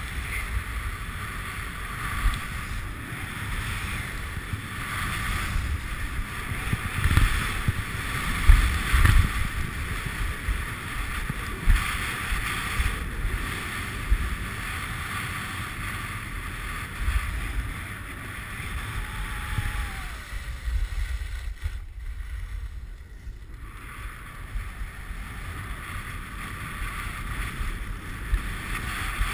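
Skis hissing and scraping over packed snow, swelling every couple of seconds with each turn, under wind buffeting the microphone of a skier's camera.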